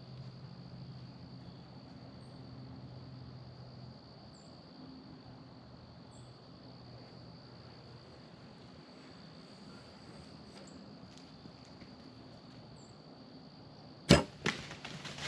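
Insects trill steadily in the woods. About fourteen seconds in comes a bow shot at a doe: a sharp loud crack of the string and arrow hitting, a second smack half a second later, then quick scattered ticks and rustles as the hit deer bolts through the leaves.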